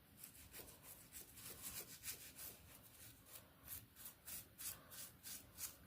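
Faint, quick rubbing strokes of a Barbie doll's face being scrubbed clean, several strokes a second.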